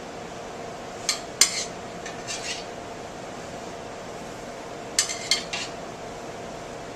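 Metal serving utensils clinking and scraping against dishes and a pan while food is plated, in scattered clusters of sharp clinks: a loud pair about a second in, a few softer ones soon after, and three more near the end.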